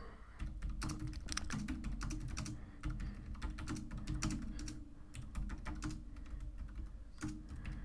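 Typing on a computer keyboard: a quick, uneven run of key clicks as a sentence is typed out.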